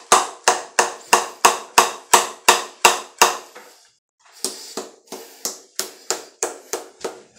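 A tin of Copenhagen Wintergreen dip being packed: its metal lid is struck again and again with a flick of the wrist, sharp taps about three a second. The taps stop briefly near the middle, then go on softer at the same pace.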